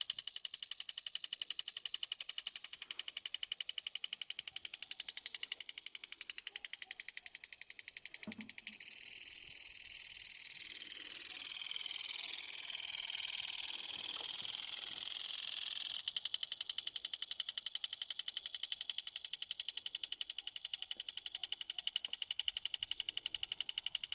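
Impulse sprinkler spraying water at low pressure, its impact arm ticking in a fast, even rhythm over the hiss of the jet. In the middle the spray hiss grows louder and steadier for several seconds, then the plain ticking returns.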